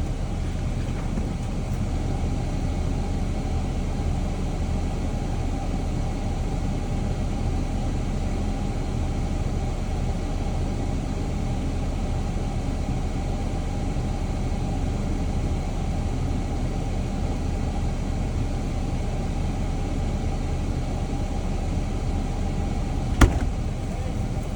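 Jeep engine running steadily as it drives slowly along a rutted off-road trail, a constant low drone with road noise. One sharp knock near the end.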